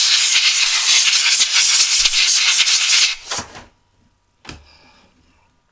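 Compressed air hissing from an air-hose nozzle in one long blast of about three seconds, then a short blast and a brief puff, blowing clean the heater's air-pump cover and housing.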